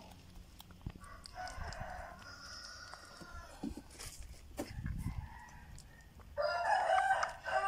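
A rooster crowing twice: a fainter crow in the first few seconds, then a louder, longer crow near the end.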